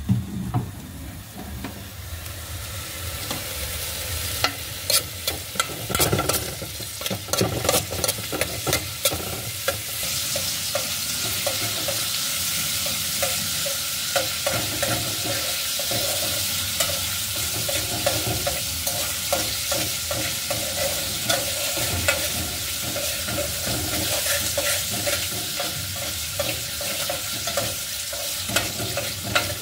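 Food sizzling as it fries in an aluminium pot, the hiss building over the first several seconds and then holding steady. A utensil stirs it, clicking and scraping against the pot, busiest in the first ten seconds and again near the end.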